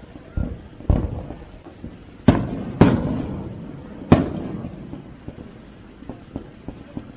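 Aerial fireworks shells bursting: about five booms, the three loudest in the middle, each followed by a rolling echo. Small crackling pops come in near the end.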